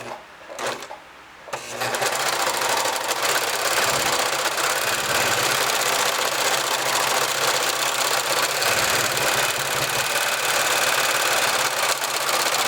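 Singer X5004-HD heavy-duty serger running steadily under the foot pedal with no fabric, chaining off a thread chain with three threads and one needle. A couple of light clicks come first, and the machine starts about a second and a half in.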